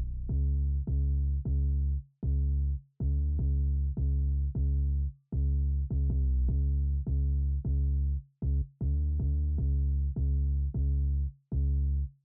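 Background electronic music: a steady drum-machine beat of about two hits a second over a deep bass line, with a few brief breaks.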